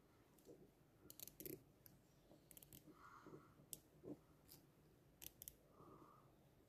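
Near silence with scattered faint clicks and light rustling: hands handling small engine parts while fitting the cylinder base gasket over the piston onto a Stihl MS 150 TC chainsaw crankcase.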